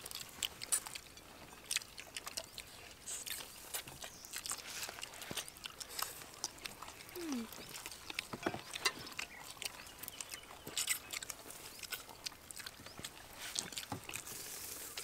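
Several people eating noodles with chopsticks: slurping and chewing, with many short, irregular smacks and clicks.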